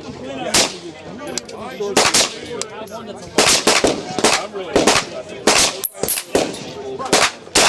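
Suppressed semi-automatic rifle firing repeatedly: about a dozen sharp shots at uneven spacing, several in quick pairs.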